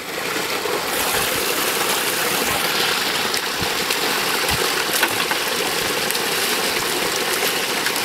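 Creek water gushing steadily out of a concrete pipe outflow and splashing into a plastic 5-gallon bucket held under it, then falling into the creek below.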